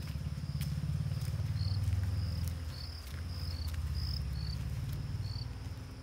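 Short high chirps repeating every half second or so, typical of an insect, over a steady low rumble that is the loudest sound.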